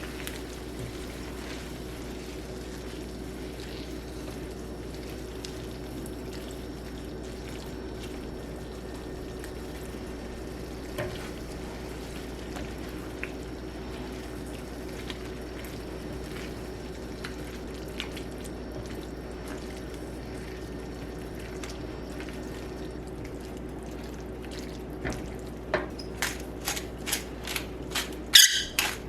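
Kitchen sounds: a steady hum and hiss with a few scattered light clicks, then a quick run of sharp clicks and clacks near the end.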